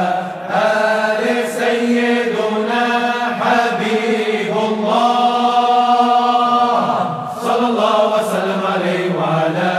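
Arabic devotional zikr chanting: voices sing a drawn-out melodic line of blessings on the Prophet over a steady low held drone, with one long held note from about five seconds to nearly seven seconds in.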